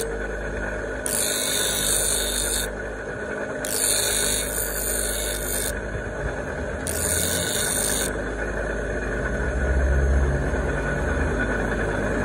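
Bench grinder motor running steadily while a steel knife blade cut from an old saw is pressed against its abrasive grinding wheel. Each of three passes, a second or two long, gives a hissing screech of metal being ground.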